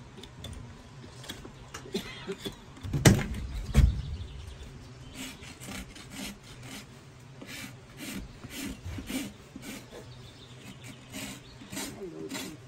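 Farrier's hoof rasp filing a donkey's hoof, a dry scraping stroke about twice a second through the second half. Two heavy thumps come about three and four seconds in.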